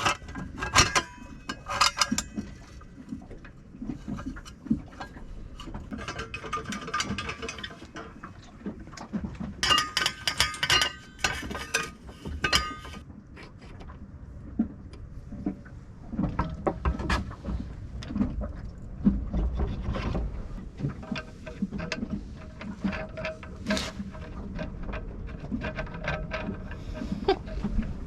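Irregular clicks, clinks and knocks of metal parts and hand tools as the shift and throttle mechanism of an Edson steering pedestal is put back together, with short ringing tones now and then.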